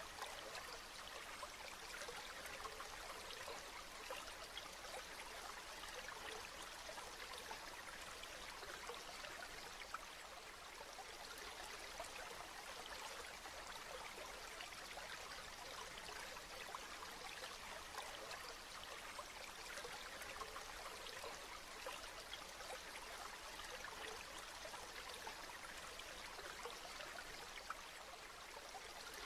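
Steady rain falling: an even hiss dotted with many small drop ticks, with no change or pause.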